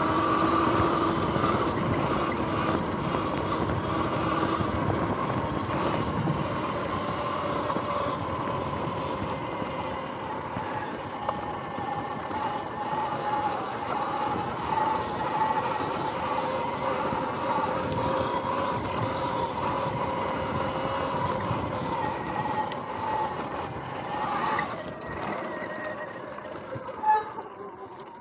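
Sur-Ron X electric dirt bike riding over grass, its motor and freshly replaced drive chain giving a steady whine. The whine drops slightly in pitch after the first few seconds and fades as the bike slows near the end, with one sharp click shortly before it stops.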